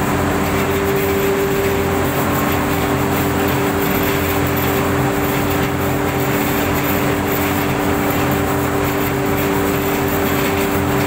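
Red chilli grinding machine running: a loud, even mechanical drone with a steady two-note hum through it, while ground chilli powder is discharged.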